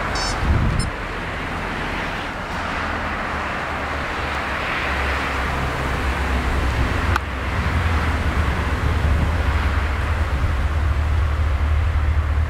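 Steady low rumble and hiss of outdoor background noise, with a short high squeak about half a second in and a single sharp click about seven seconds in.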